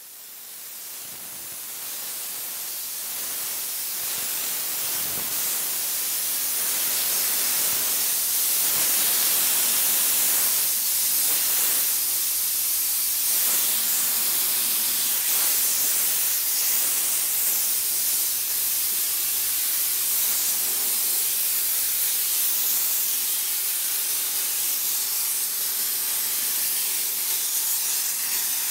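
Steady hiss of high-pressure steam jetting from a steam cleaner's wand onto a car's engine bay and body panels. It fades in over the first several seconds, then holds steady.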